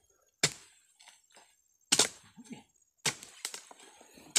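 Steel blade on a long harvesting pole chopping into oil palm frond stalks: four sharp, cracking hits, about one every second and a half, with a few lighter knocks between.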